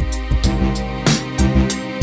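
Background music with a steady drum beat over held bass and chord tones.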